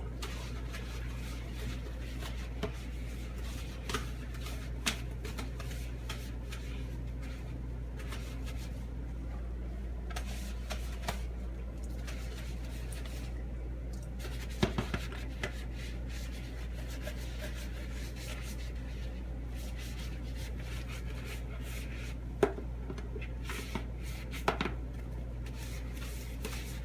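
Occasional light clinks and knocks of dishes being handled at a sink, spread out with long gaps, over a steady low hum.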